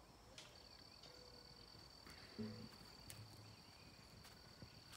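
Faint, steady, high-pitched trilling of a cricket, breaking off briefly just after the start. A brief low murmur comes about two and a half seconds in.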